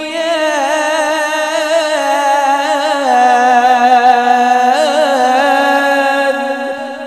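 A man's voice in melodic Quran recitation (tilawat), drawing out one long, ornamented phrase with a wavering pitch. The pitch shifts about three seconds in, and the phrase fades near the end.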